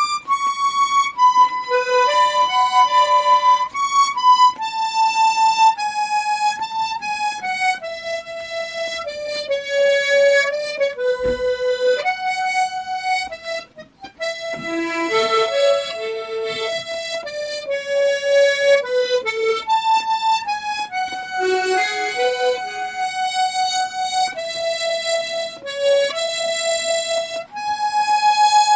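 Harmonica playing a slow melody, with short lower notes sounded in turn beneath it as broken chords. The playing pauses briefly about halfway through, just after a single low thump.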